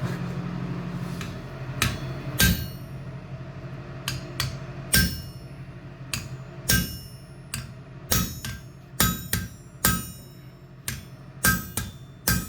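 Blacksmith's hammer striking steel on an anvil: about twenty irregular blows, each with a short bright metallic ring, starting a couple of seconds in and coming faster, about two a second, in the second half. A steady low hum is heard before the first blows.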